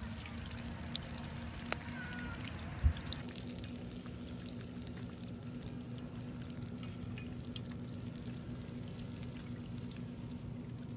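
Beer-battered catfish frying in oil in a cast iron skillet over a campfire: a steady sizzle and bubbling, with scattered small pops and one low thump about three seconds in.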